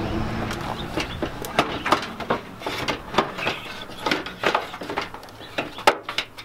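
Irregular clicks and knocks of a car's plastic headlight assembly being worked loose and lifted out of its mounting in the front wing.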